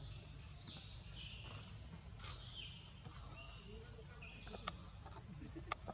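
Outdoor forest ambience: a steady, faint high insect drone with a few short, high chirps in the first half. Two sharp clicks come near the end.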